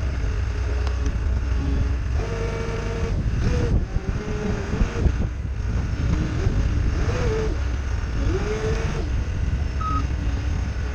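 Diesel engine of a CAT 246B skid steer working under load, its pitch rising and falling as the throttle and load change. A short backup-alarm beep sounds near the end.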